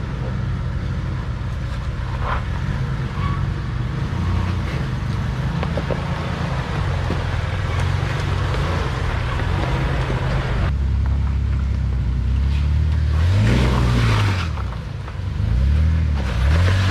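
An off-road 4x4's engine working under load on a steep trail climb. Near the end the revs rise and fall twice.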